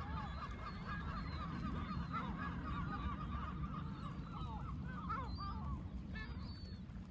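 A large flock of gulls calling all together: a dense chatter of short squawks and yelps, with one louder call about six seconds in, over a steady low rumble.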